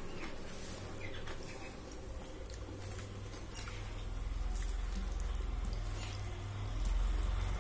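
Close-up eating sounds: small wet mouth clicks and chewing, with soft squishing as fingers mix millet khichdi on a steel plate. A low rumble builds in the background in the second half.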